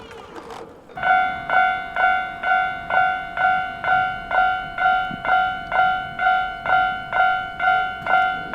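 Japanese level crossing warning bell starts up about a second in, then rings steadily at about two strikes a second.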